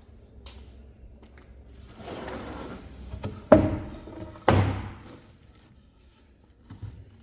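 Two heavy wooden thunks about a second apart, each ringing briefly, after a short stretch of handling noise.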